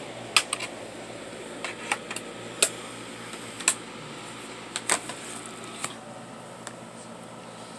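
Sharp plastic clicks and snaps as a DVD is pressed off the hub of its case and the case and a portable DVD player are handled, about a dozen clicks over the first six seconds, over a steady low hum.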